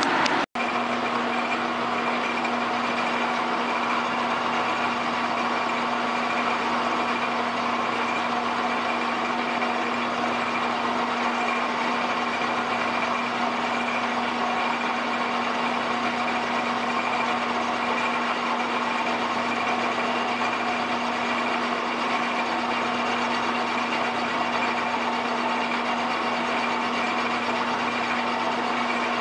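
Metal lathe running at a steady speed while a tool held in its lantern toolpost machines the spinning hub: an even whirr with a constant hum. The sound cuts out for an instant about half a second in, then runs on unchanged.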